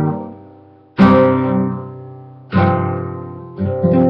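Nylon-string classical guitar strumming chords, each struck and left to ring and fade. Three strums about a second and a half apart, the last one a quick double strum.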